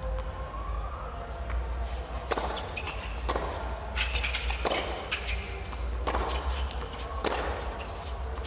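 Tennis rally on a hard court: rackets striking the ball and the ball bouncing, a series of sharp hits roughly a second apart, about six of them.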